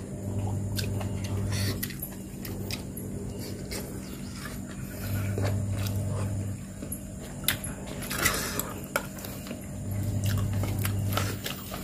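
A metal spoon clicking and scraping on a ceramic plate while eating, with short chewing noises. A steady low hum runs underneath, and a deeper drone swells up three times.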